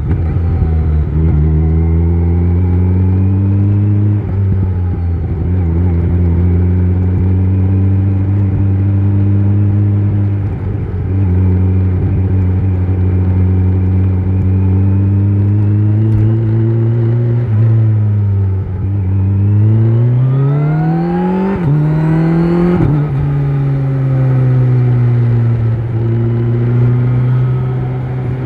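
Kawasaki Z900 inline-four with an Akrapovic exhaust, ridden at a steady engine speed. About two-thirds of the way through, the revs drop, then climb hard in two rising pulls with a gear change between them. After that they fall back and settle into a steady cruise.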